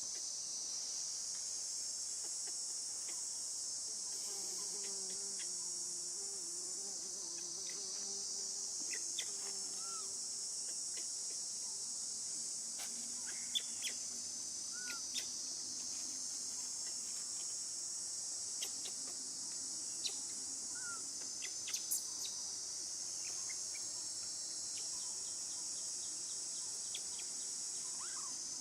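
Steady, high-pitched chorus of insects buzzing without a break, with scattered faint clicks and a few short bird chirps.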